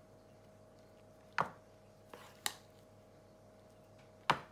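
Plastic serving spoon knocking against the saucepan and glass dish while mashed potato is scooped out and dropped: three sharp knocks, with a fainter one before the second, over a low steady hum.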